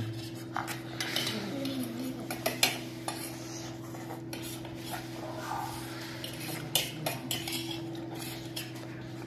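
Spoons scraping and clinking on stainless steel plates as two children eat noodles, in irregular short clicks and scrapes. A steady low hum runs underneath.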